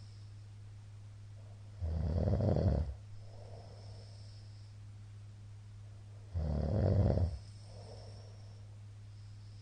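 A middle-aged man snoring loudly in his sleep: two harsh snores about four and a half seconds apart, each lasting about a second, each followed by a softer breath out.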